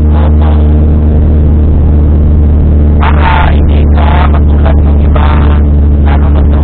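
Steady low drone of a Honda Civic's engine and tyres on a wet road, heard inside the cabin while the car cruises at a constant speed. A few short bursts of higher sound cut in through the middle.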